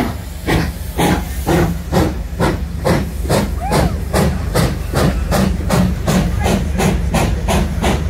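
Steam locomotive pulling away with a train, its exhaust chuffing in a regular beat that quickens from about two chuffs a second to about four as it gathers speed, over a steady low rumble.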